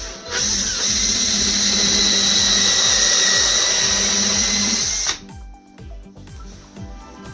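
Power tool running steadily at full speed for about four to five seconds with a high-pitched whine, then stopping abruptly, over background music.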